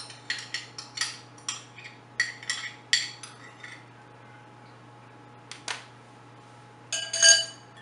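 A spoon clinking and knocking against a cup, a quick run of ringing clinks as ketchup is scraped out into a blender jar, then a pause and a louder clatter near the end.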